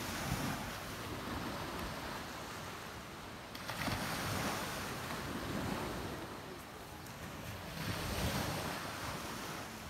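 Small waves breaking and washing up on a sandy beach, the surf swelling three times.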